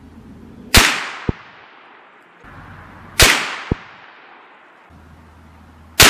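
Three rifle shots from a bolt-action .350 Legend rifle firing 160-grain Winchester Power Max Bonded rounds, spaced about two and a half seconds apart, the last one near the end. The first two are each followed about half a second later by a short ringing click.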